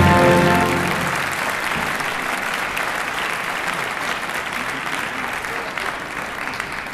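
Theatre audience applauding, with the music's final held chord dying away about a second in. The clapping then slowly fades.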